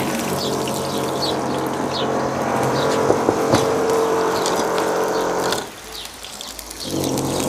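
Onion frying in oil in a skillet: a steady sizzle full of fine crackles that drops away for about a second near the end, then comes back. A low steady hum runs underneath.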